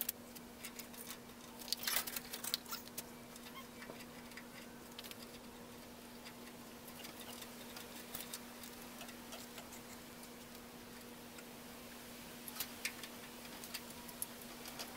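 Faint, scattered ticks and light taps of hand work at the front of a car, such as handling parts and reaching behind the headlight bucket. A small cluster comes about two seconds in and another near the end, over a steady low hum.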